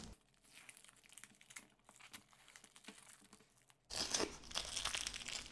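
Adhesive masking tape being peeled off painted leather and crumpled in the hand. There are faint crackles at first, then louder crinkling and tearing from about four seconds in.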